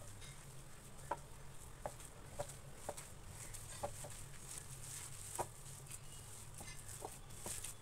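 Gloved hand squeezing and mixing a wet mixture of grated bottle gourd, paneer and gram flour in a ceramic bowl: faint, irregular squishes and clicks, about nine of them, over a steady low hum.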